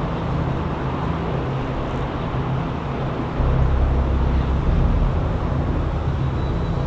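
Wind rumbling on the microphone, with a stronger gust about three and a half seconds in.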